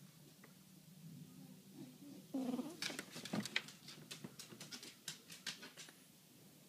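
Sleeping kitten snoring: a brief pitched snore a little over two seconds in, then a run of quick, sharp clicks for about three seconds.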